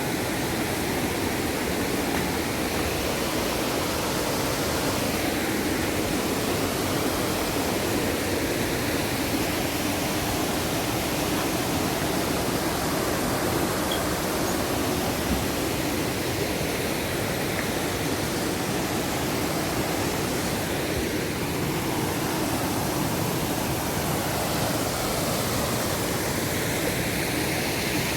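Steady rushing water, a constant roar of falling or fast-flowing water.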